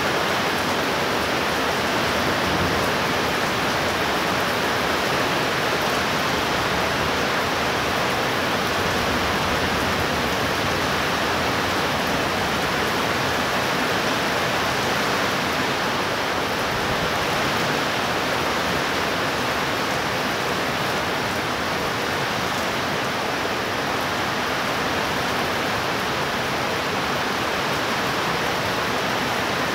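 Heavy rain falling steadily: an even hiss with no thunder.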